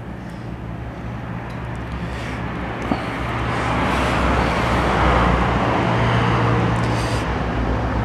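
A road vehicle passing by: engine hum and tyre noise swelling steadily to its loudest about five seconds in, then easing off a little.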